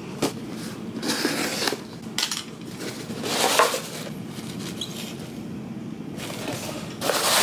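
Cardboard shipping box being handled and its flaps pulled open, giving a run of short scraping, rustling bursts, the loudest about three seconds in and another near the end.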